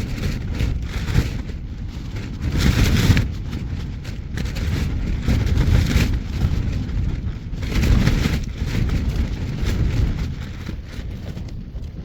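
Strong wind buffeting a tent and the microphone, swelling in gusts a few seconds apart; the gusts are what the hikers call 'hectic', strong enough that they feared losing the tent.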